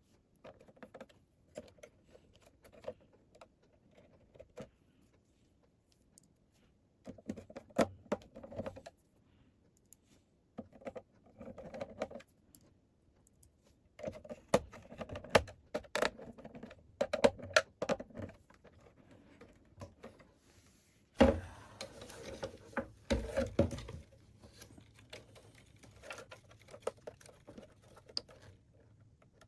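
Irregular clicks, taps and rattles of hands and tools reassembling a plastic MIDI keyboard after its USB socket was replaced, coming in clusters, with a couple of louder knocks about two-thirds of the way through.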